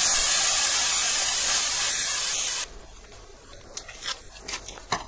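Air hissing out of a bicycle inner tube's valve as the tyre is let down. The hiss is steady and cuts off abruptly a little past halfway, followed by a few light clicks.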